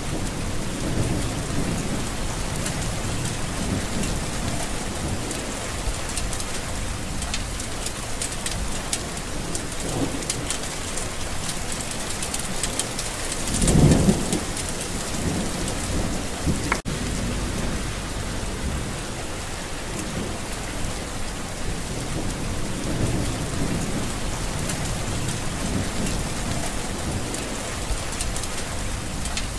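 Steady heavy rain falling, with low rolling thunder in the background; one louder thunder rumble swells and fades about halfway through. A short sharp click follows a few seconds later.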